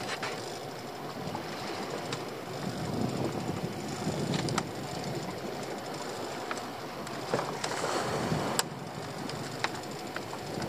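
Sea water sloshing and slapping against the hull of a small open boat, with a steady low rumble, broken by scattered sharp clicks and knocks.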